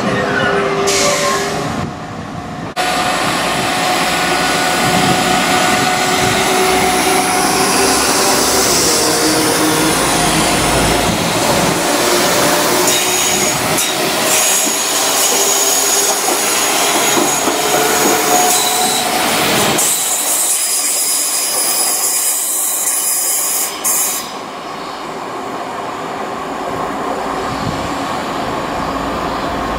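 Class 172 Turbostar diesel multiple units running on the rails: engine and wheel noise, with a thin high-pitched squeal in the middle. The sound changes abruptly twice, about three seconds in and near the end.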